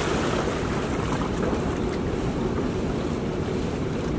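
Steady rush of churning river water below a dam spillway, mixed with a low rumble of wind on the microphone.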